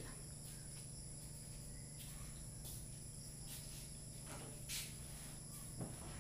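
Quiet room tone: a steady low electrical hum with a faint high whine, broken by a brief rustle about three-quarters of the way through and a soft knock just before the end.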